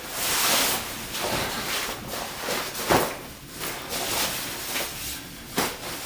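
Rustling and shuffling with two sharp knocks, about three seconds in and near the end: someone moving about and handling things in a small room.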